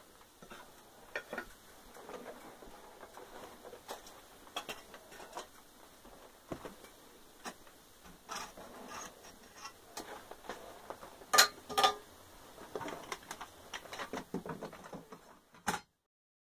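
Scattered metal clinks, knocks and scrapes of casting tools against a crucible of molten bronze, with two sharp clinks close together about two-thirds of the way through as the loudest. The sound cuts off suddenly just before the end.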